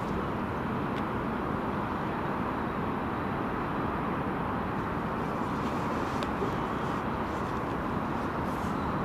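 Mi-8 helicopter's twin turboshaft engines and rotor running steadily on the ground after start-up, an even, unbroken noise.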